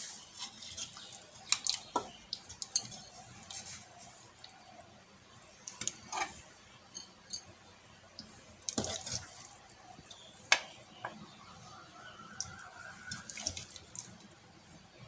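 Spoon scraping and clinking against a cooking pot as thick chicken korma is dished out, in scattered knocks and short scrapes.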